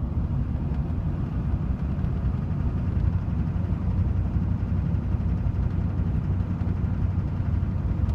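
2006 Duramax LLY 6.6-litre V8 turbodiesel running steadily, with the knocking noise that the owner is seeking help to identify.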